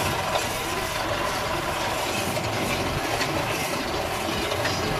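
Tractor engine running steadily while pulling a hay rake slowly along the swath, with a constant mechanical clatter from the rake.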